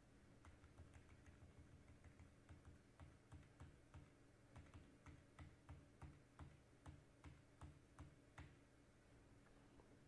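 Faint keystrokes on a computer keyboard, a steady run of taps about three a second that stops near the end.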